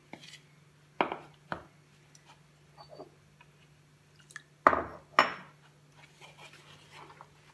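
Steel spoon knocking and scraping against a plastic bowl while gram flour is stirred into a thick batter with a little water. Four sharp knocks in two pairs, about a second in and again near five seconds, with light scraping and ticks between.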